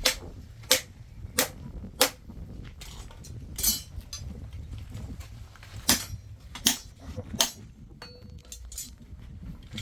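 Hammer blows on metal while forging knives: sharp ringing strikes about two-thirds of a second apart, a run of four near the start and another run later, over a steady low rumble.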